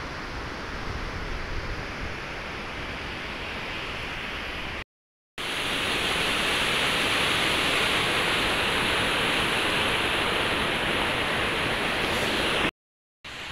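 Rushing whitewater of a rocky mountain river, a steady noise of water. It cuts out for about half a second about five seconds in, comes back louder and brighter, and cuts out briefly again near the end.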